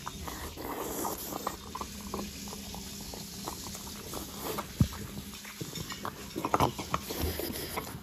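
French bulldog eating from a ceramic bowl: irregular wet chewing and lapping, with a few sharper clicks in the second half.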